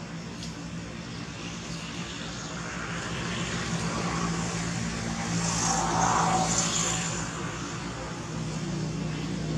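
A steady engine hum with a wash of noise that grows louder to a peak about six seconds in, then fades, like a motor vehicle passing by.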